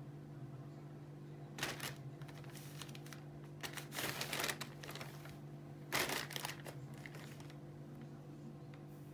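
Thin plastic shopping bag crinkling in three short bursts, about a second and a half in, around four seconds in and at six seconds, as a kitten pokes its head into it. A low steady hum runs underneath.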